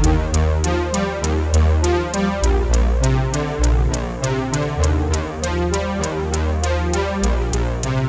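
Electronic background music with a steady beat: regular hi-hat-like ticks over synthesizer chords and deep bass notes.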